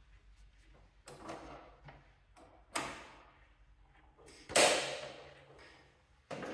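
A few separate knocks and clunks on the metal of a garden tractor as it is handled, the loudest about halfway through ringing out for over a second. No engine running or cranking is heard.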